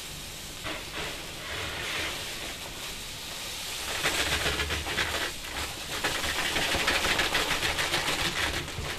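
Granulated sugar pouring from a sack into a plastic drum: a steady, grainy hiss of running sugar that grows louder about four seconds in.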